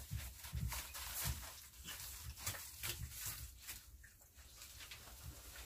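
Two puppies eating from a metal feeding pan: irregular small clicks and crunches as they chew and nose the food.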